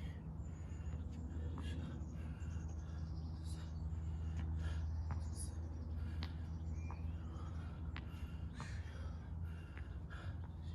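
Heavy breathing of a person exercising hard, gasping and puffing between efforts.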